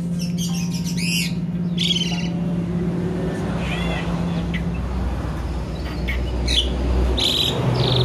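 Sooty-headed bulbul (kutilang) singing in short bursts of loud, arching whistled notes and a harsher burst near the end, mimicking the calls of an Asian pied starling (jalak suren). A steady low hum runs underneath.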